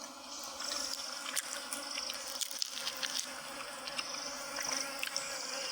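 Insects buzzing, with a high pulsing trill that comes and goes and a few light clicks.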